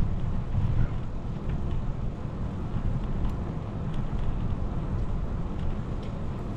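Wind buffeting the microphone of a camera on a moving bicycle: a steady low rumble, with a few faint clicks.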